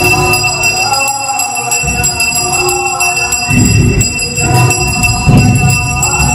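Temple aarti music: brass bells ringing steadily, with heavy drum beats coming in strongly about halfway through.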